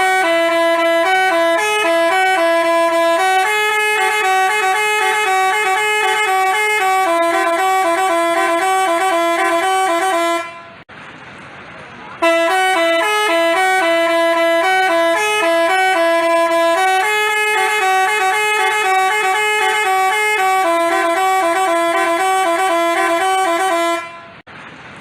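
Telolet basuri multi-tone bus horn playing a tooting melody for about ten seconds, stopping briefly, then playing the same melody again.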